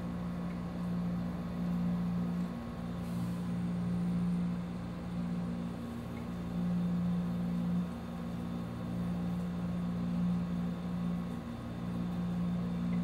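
Steady low machine hum, swelling and fading slightly in strength every few seconds.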